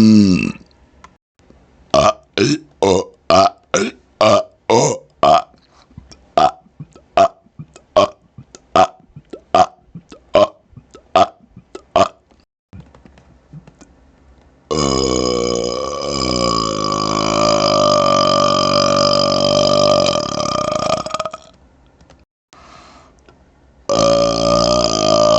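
A man's deliberate burps right up close to a laptop microphone. A long burp trails off at the start. Then comes a rapid-fire run of about two dozen short burps, about three a second at first, slowing and fading, then a single long burp of about six seconds, and another long one beginning near the end.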